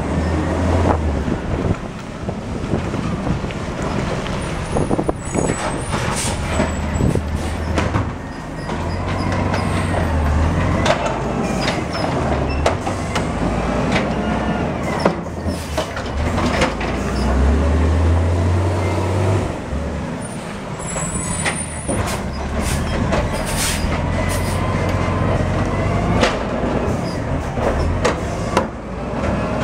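Compressed-natural-gas automated side-loader garbage truck working a collection: its engine running and revving up and down, air brakes hissing, and repeated knocks and clatters as the mechanical arm lifts a recycling bin and tips it into the hopper.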